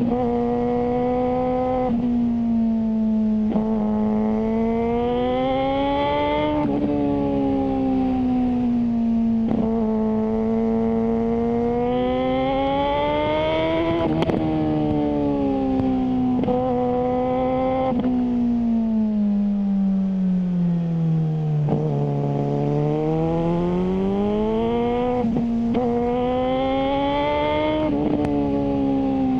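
Suzuki GSR600 inline-four running through a GPR Ghost aftermarket exhaust while ridden. The pitch climbs under acceleration and drops abruptly at each gear change, three main times. Midway it falls slowly and low as the bike slows, then picks up again.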